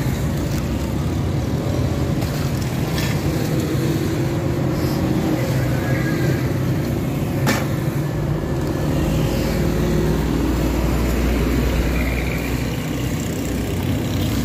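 Steady street traffic noise, with engines running and a deeper rumble building from about eight to twelve seconds in as a vehicle passes close. A single sharp click comes about seven and a half seconds in.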